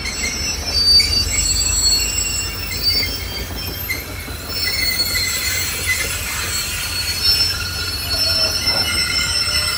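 Passenger rail cars' steel wheels squealing on the track in several high, shifting tones over a low rumble.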